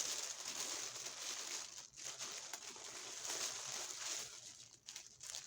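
Crinkling of the individual packaging around balls of yarn as it is handled, a continuous uneven rustle.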